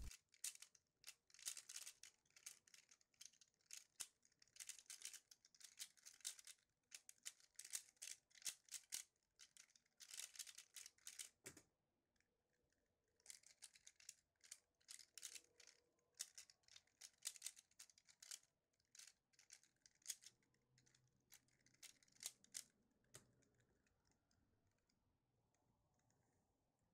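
A 3x3 speed cube turned fast during a speedsolve: rapid runs of faint plastic clicks and clacks as the layers turn. About eleven and a half seconds in, a single knock on the keyboard stops the timer. More bursts of cube turning follow until about 23 seconds in.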